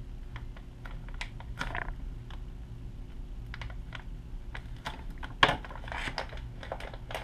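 Irregular small clicks and crackles of a plastic motor package being handled and cut at with a knife, with one louder snap about five and a half seconds in, over a low steady hum.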